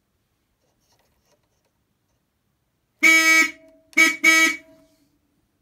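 Freshly restored Clear Hooters Ltd electric horn on an Austin 1300 (ADO16), working again, heard from the driver's seat. It gives three toots of one steady pitch: one of about half a second, then two short ones in quick succession.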